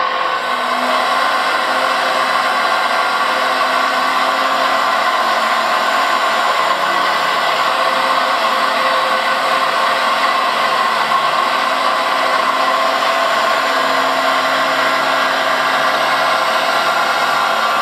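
Electric-driven hydraulic pump of an RC Liebherr 956 excavator model, rebuilt with a 36-bar hydraulic system, running with a steady whine as the boom and bucket move.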